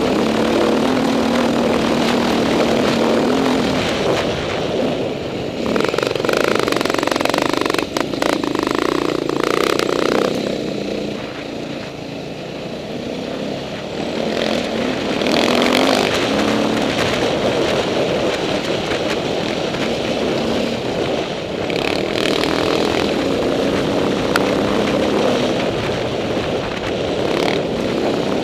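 Dirt bike engine running under load, its pitch rising and falling with the throttle, with a quieter stretch about halfway through as it eases off.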